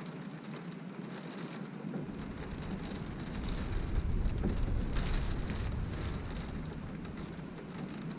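Wind-driven rain beating on a window pane, a steady hiss with pattering bursts. A gust of wind comes in with a low rumble about two seconds in and is strongest midway.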